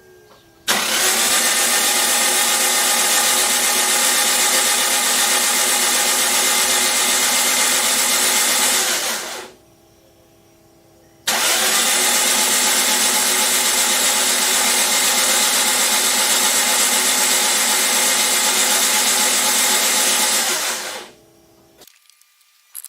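Freshly rebuilt Toyota 1ZZ-FE four-cylinder engine on its first start: two steady spells of engine sound of about nine seconds each, with a pause of about two seconds between them. Each starts suddenly and stops quickly.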